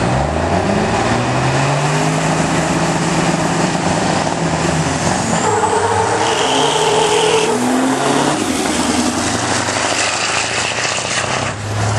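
Diesel engines of two semi trucks drag racing at full throttle, pulling away hard from the line. The engine note climbs in pitch, drops back and climbs again several times as they accelerate down the strip.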